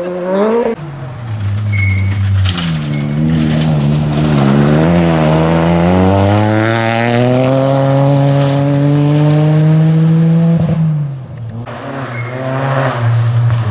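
Rally cars accelerating hard past on a gravel stage, engines revving up and down through the gears. One long, steady climb in pitch cuts off sharply about eleven seconds in, and another car's engine rises near the end.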